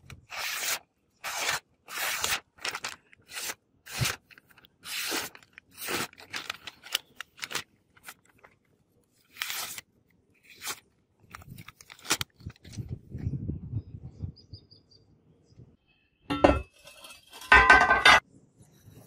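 A sharp karambit blade slicing through a sheet of paper in quick strokes, about two a second: short crisp cuts that test the edge's sharpness. Near the end come two louder knocks with a metallic ring.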